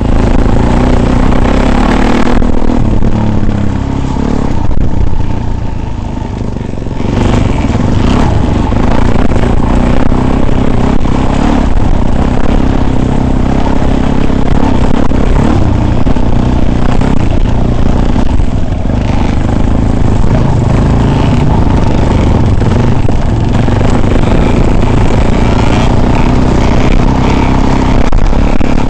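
Vehicle engine running steadily while driving off-road, loud on board, easing off briefly about five seconds in.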